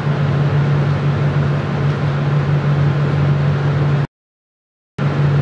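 Steady blower hum and airflow of a laminar flow safety cabinet. It drops out to dead silence for just under a second about four seconds in, then resumes unchanged.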